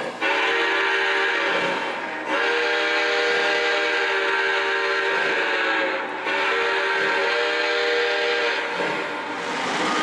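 Multi-chime steam whistle from an O-gauge model steam locomotive's onboard sound system, several notes sounding together as a chord. It sounds three long blasts, the middle one the longest.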